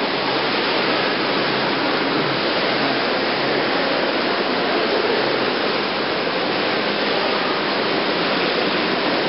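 Steady rush of running water in an indoor thermal pool hall, an even, unbroken noise.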